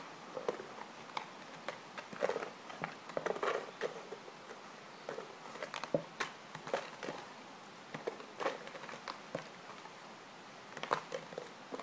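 A Saint Bernard puppy's food bowl being pushed, dropped and carried across gravel: irregular scrapes and knocks of the bowl on the stones, mixed with the crunch of the puppy's paws on the gravel.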